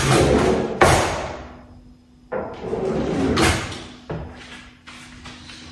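Kitchen drawers and cupboards banging open and shut with clattering, while someone rummages for a knife: four loud knocks in the first three and a half seconds, then a softer one.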